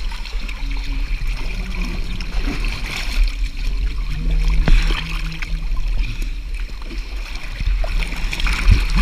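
Stream water in a canyon splashing and gurgling, with a steady low rumble and scattered small knocks.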